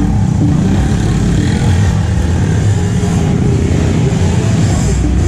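Off-road motorcycle engines running, loud and steady.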